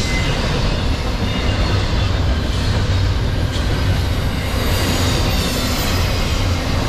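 Double-stack intermodal freight cars rolling past close by: a steady, loud rumble of steel wheels on rail, with faint high wheel squeal now and then and a single click about halfway through.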